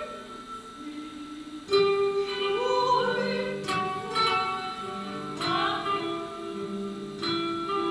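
Live guitar music: plucked chords struck every couple of seconds under a slow sung melody with wavering, held notes.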